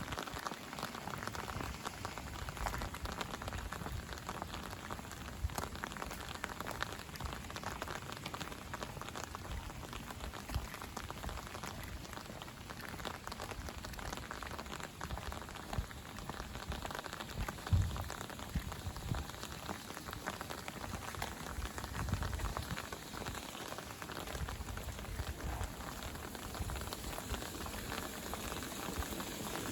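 Steady rain falling, a dense patter of drops, with a few low thumps; the loudest thump comes about eighteen seconds in.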